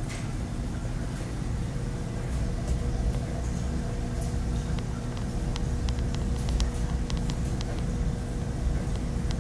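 Saltwater reef aquarium equipment running: a steady low rumble of pumps and circulating water with a faint, even electrical hum. A run of faint light clicks comes in the middle.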